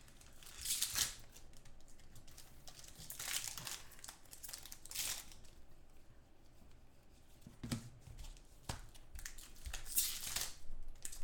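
Foil wrappers of trading-card packs being torn open and crinkled, with cards rustling in the hands, in about five short bursts.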